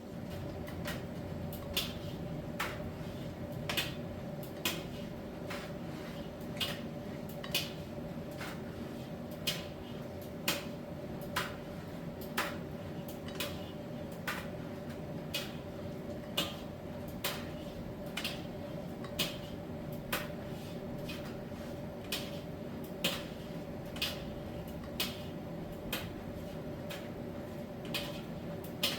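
Miele T1 heat-pump dryer running mid-cycle with a steady hum, its drum tumbling the load, with a sharp click about once a second.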